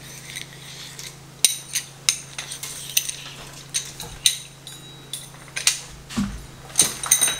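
Hollow metal down-rod sections of a pendant light clinking and rattling against one another as they are handled and pulled apart, a series of sharp metallic ticks with bright ringing, the loudest near the end.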